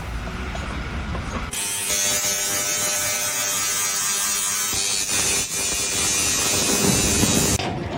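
A small motor running with a steady, high buzzing whine that starts suddenly about a second and a half in and cuts off near the end.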